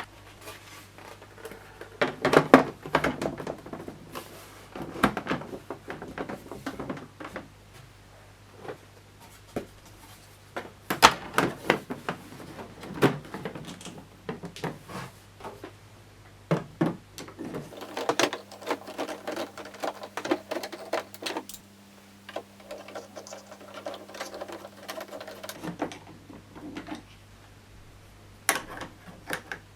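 Hands working on a Jura Z5 espresso machine during repair: irregular clicks, knocks and short rattles of plastic and metal parts being handled and fitted, over a faint steady hum. A steady pitched hum runs for about eight seconds in the middle.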